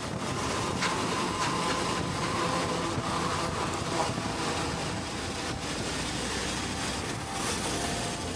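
Suzuki V-Strom 650's V-twin engine running under steady wind rush on the microphone while riding at highway speed.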